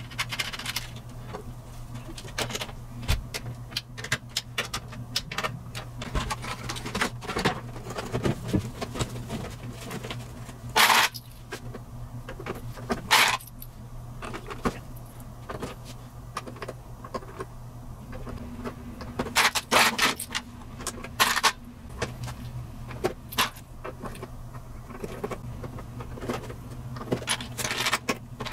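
Handling noise from reassembling a Micromoog synthesizer: scattered clicks, knocks and rattles of its casing, panel switches and small parts in a plastic parts box, with a few louder clatters, over a steady low hum.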